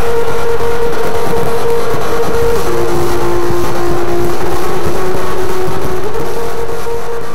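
Loud electronic drone: a held synthesizer tone over a dense noisy wash. The tone drops in pitch a little under three seconds in, comes back up about six seconds in, and the whole sound fades out near the end.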